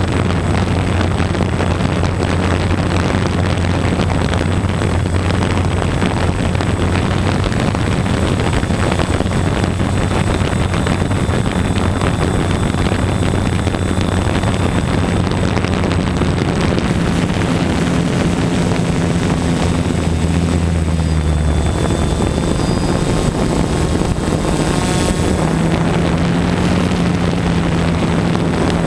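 Steady running of the motor-driven propeller on the aircraft carrying the camera, its pitch shifting in steps about two-thirds of the way through. A brief rush of noise comes about 25 seconds in.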